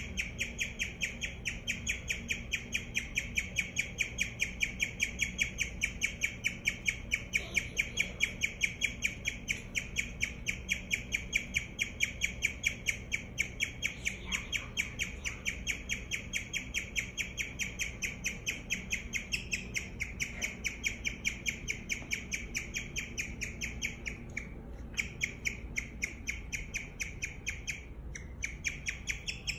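Guinea pig chirping: a long unbroken run of short, high, bird-like chirps at about five a second, with a couple of brief breaks near the end.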